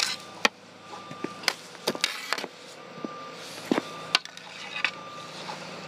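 Hockey stick clacking and scraping on asphalt as the ball is handled and shot: a dozen or so sharp, irregular knocks with scrapes between them.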